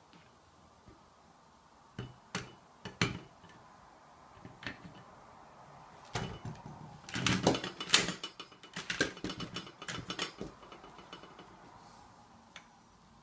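Handling noises of a ceramic bowl and a black plastic dog-bowl stand: a few sharp knocks, then a dense clatter of taps and clicks from about six to ten seconds in, as the bowl is lifted off the stand and put aside. It tails off into faint rustling as the tape measure is held to the stand.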